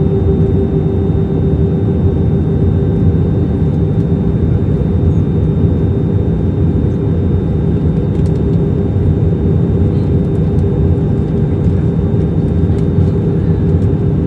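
Airbus A321 airliner in flight: a steady, even rush of engine and air noise with a constant low hum running under it.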